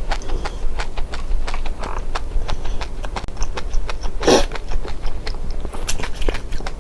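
Seeds being eaten: rapid, irregular crunchy clicks of seeds being bitten and cracked, several a second, with a brief rustle about four seconds in and a steady low hum underneath.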